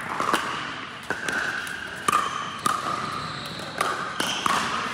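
Pickleball rally: paddles popping against the hollow plastic ball about seven times in five seconds, each pop ringing briefly in a large indoor hall.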